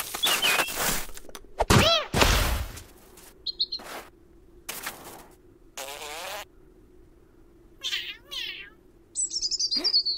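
Cartoon sound effects of a cat leaping into snow: rushing noise and a heavy soft thump about two seconds in, then short scuffling noises and a wavering cat-like call. A small bird chirps throughout, ending with a high falling tweet.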